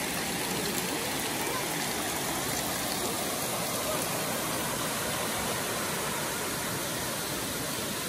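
Steady rush of flowing water from small waterfall cascades and a spring spout pouring onto rocks.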